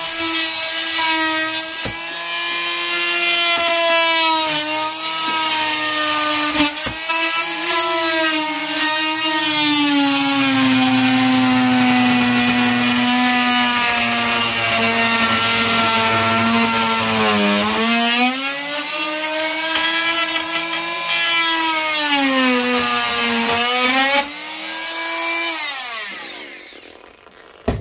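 Oscillating multi-tool plunge-cutting into pine tongue-and-groove wall paneling: a steady buzzing whine that drops lower in pitch for several seconds midway as the blade bites into the wood, then rises again. Near the end the tool winds down and stops.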